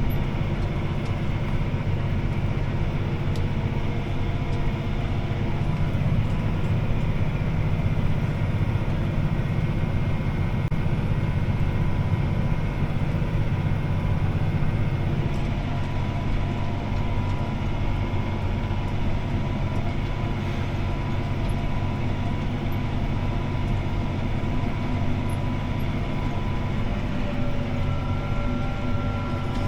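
CLAAS ARION 650 tractor's six-cylinder diesel engine running steadily under load as heard inside the cab while pulling a disc harrow, a deep, even drone with a faint steady whine above it.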